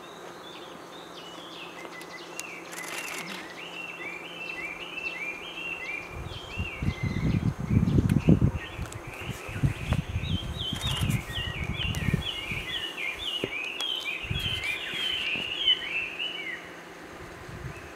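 Rapid series of short, falling chirps, a few each second, in two long runs: one at the start and another from about ten to sixteen seconds in. A low rumbling noise is loudest in the middle, between about six and thirteen seconds.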